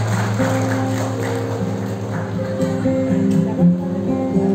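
Live band music: an acoustic guitar playing chords over a steady low note, the chords changing every second or so.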